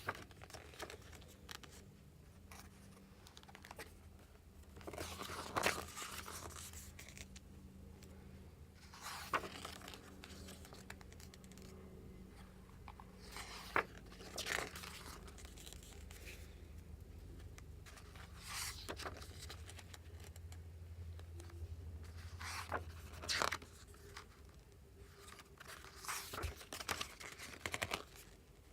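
Packaging being handled by hand while a photobook is unboxed: wrapping crinkling and tearing in short, scattered bursts, over a low steady hum.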